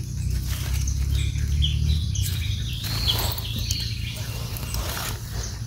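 Rustling and light clicks, as of hands and feet moving through forest leaf litter, with short bird chirps now and then over a low steady rumble.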